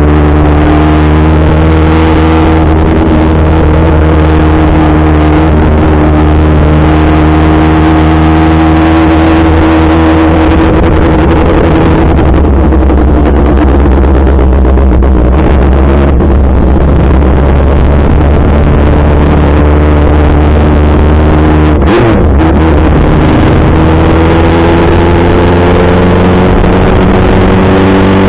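Kawasaki ZX-6R 636's inline-four engine running loud and steady while being ridden, its pitch slowly rising and falling with the throttle. There is a brief sharp drop and recovery in pitch about three quarters of the way through.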